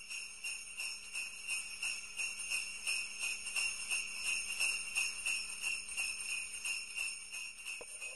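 Sleigh bells shaken in a steady rhythm, about three shakes a second, jingling continuously.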